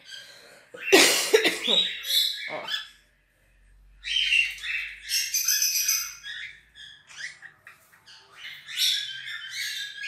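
Caged cockatiels and other small parrots calling: a loud squawk about a second in, then bursts of high chirping and chattering calls.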